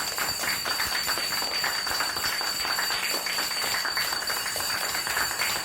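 Applause: many hands clapping in a dense, steady patter, with a faint steady high whine underneath.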